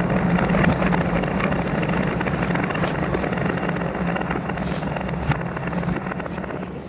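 A steady low rumble with faint scattered ticks, starting abruptly and easing off near the end.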